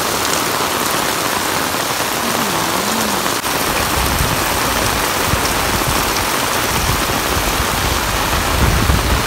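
Heavy rain pouring onto concrete paving: a steady, dense hiss. A low rumble joins underneath about four seconds in.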